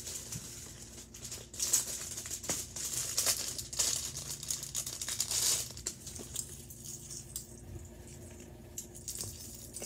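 Packaging rustling and small metal parts clinking as a chain collar is unwrapped and handled, in a run of short sharp rattles that quiets down after about six seconds.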